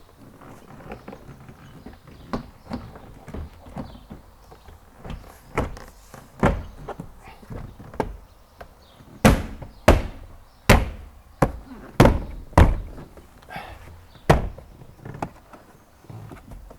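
Plastic door trim panel on a car door being knocked and pressed back into place: a string of knocks and thumps, with a run of about six hard thumps in the middle.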